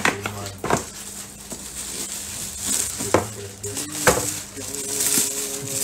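A cardboard box and its lid knocking a few times as they are handled and set down, then plastic wrapping rustling and crinkling as it is pulled out of the box.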